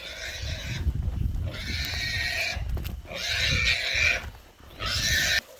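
Wild boar squealing in four long, harsh cries about a second apart, caught by the pig dogs.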